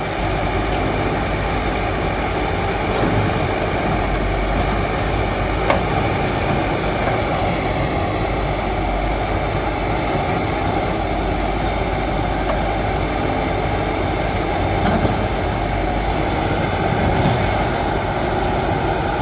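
Backhoe loader's diesel engine running steadily under work, with a couple of short knocks.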